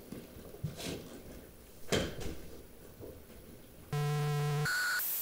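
A few soft knocks and rustles in a quiet room, then about four seconds in a loud electronic buzz cuts in, followed by a brief higher beep and a burst of static hiss.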